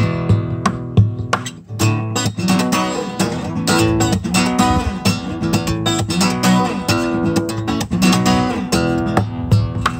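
Solo acoustic guitar playing the instrumental introduction of a song, a rhythm of strummed chords with a brief drop in level about a second and a half in.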